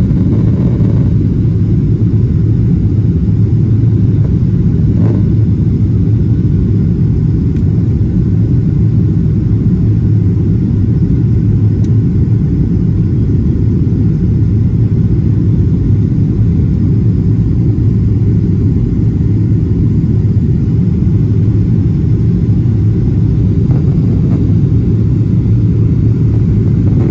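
Steady low rumble of airliner cabin noise in flight, engines and airflow heard from inside the cabin by the window.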